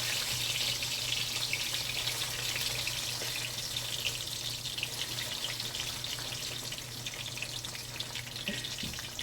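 Sliced plantains frying in hot oil in a pan: a steady sizzle full of small crackles that gradually eases, over a faint low hum.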